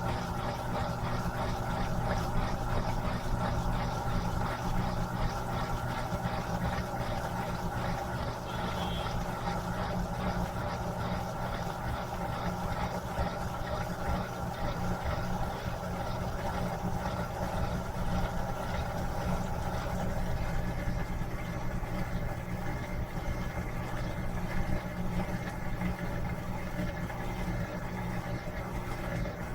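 Electrolux LM13Q top-load washing machine running steadily, its motor giving an even hum, with a faint higher whine joining about two-thirds of the way through.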